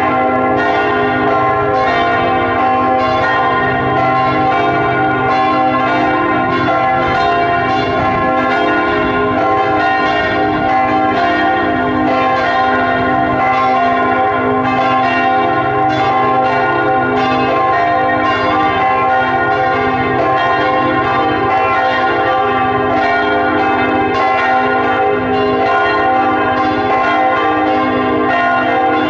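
Church bells of Sainte-Victoire church pealing: several bells at different pitches struck over and over, their ringing overlapping into a continuous wash of tones.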